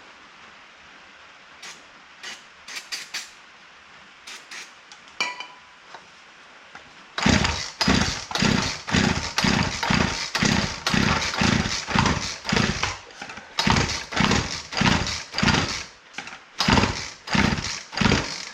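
Old consumer chainsaw's recoil starter being yanked over and over, about two quick pulls a second, the two-stroke engine turning over on full choke without catching. A few light handling clicks come first, then the pulls start about seven seconds in, with two short pauses.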